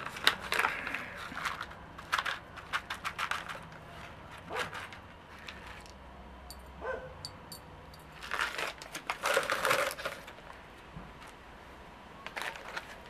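Crinkling and rustling of a packet and small clicks as whole spices are handled and dropped into a glass jar, with a few short animal calls, like a dog's, in between.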